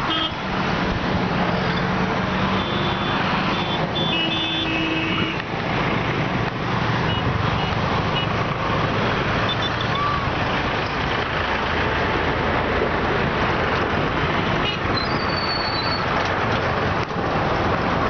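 Steady road traffic noise from vehicles on the causeway. A heavy engine drones and a few short horn toots sound in the first five seconds.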